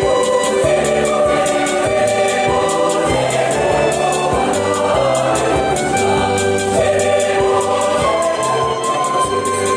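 Mixed choir singing a lively Swahili Easter song in parts, over a keyboard accompaniment with steady bass notes and a steady beat.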